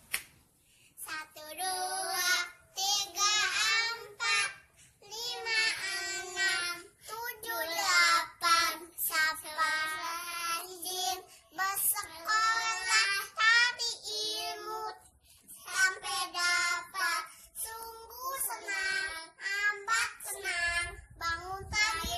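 A young child singing a song without accompaniment in a high voice, in sung phrases of a few seconds separated by short breaths.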